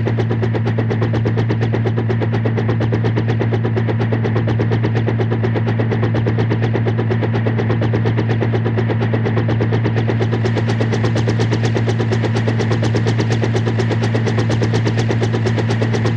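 Helicopter running steadily: the rapid, even chop of the rotor blades over a constant low engine hum.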